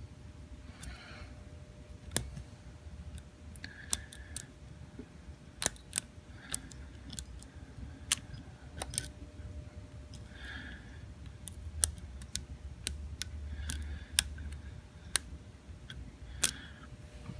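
Lock picking on a Supra-C key safe slider lock: irregular sharp metal clicks from the pick and tension tool working the sliders, with short scratchy scrapes between them.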